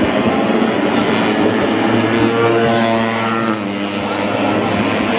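Several racing motorcycles' engines running hard as the bikes race around a dirt track. One engine's pitched note stands out from about two seconds in and fades by about three and a half seconds.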